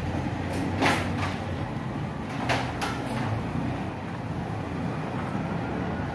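Metal hand tools clinking as they are picked up and set against a motocarro engine's crankcase during assembly: a few sharp clinks in the first three seconds, the loudest about a second in, over a steady low rumble.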